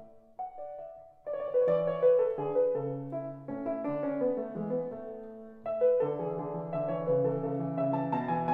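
Background piano music: after a short lull near the start, a fuller phrase with chords and a low bass line comes in, and a new phrase begins about six seconds in.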